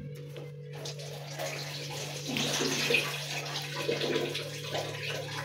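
Paper rustling as the pages of a paperback book are turned and riffled by hand, a dense, uneven rustle that starts about a second in.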